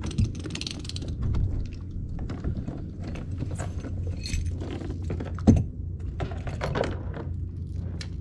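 Clicking, rattling and knocking of kayak fittings and fishing gear being handled, over a steady low rumble, with one louder knock about five and a half seconds in.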